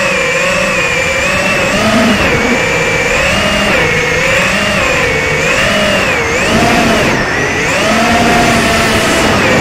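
ZMR250 FPV racing quadcopter's brushless motors and propellers whining, heard from the drone's onboard camera. The pitch wavers up and down with the throttle, then climbs to a higher, steadier note for about a second and a half near the end.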